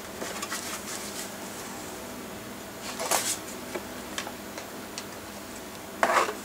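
Light clicks and scrapes of a plastic laptop casing being handled, with a louder rustling scrape about three seconds in and another near the end, over faint room hum.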